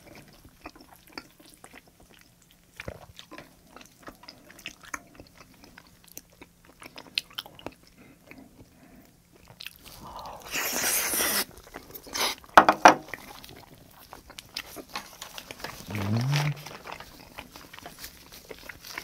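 Close-miked mouth sounds of someone eating raw salmon sashimi: soft chewing clicks and lip smacks throughout. A louder wet burst comes about ten seconds in as a slice goes into the mouth, followed by a few sharp smacks. A short rising hum comes near the end.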